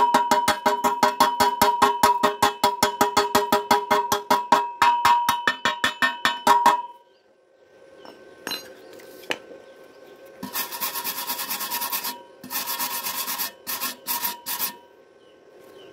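Chipping hammer rapidly striking slag off a fresh stick-weld bead on thin galvanized steel tube, several blows a second, each one ringing through the metal. The tapping stops about seven seconds in. A few seconds later a wire brush scrubs the bead in three bursts of rough scraping.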